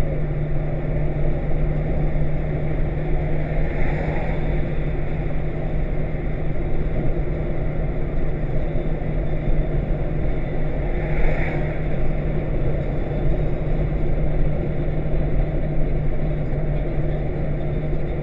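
Steady car cabin noise while driving: an engine drone with a constant low hum under the rumble of tyres on the road, with a brief swell of hiss twice.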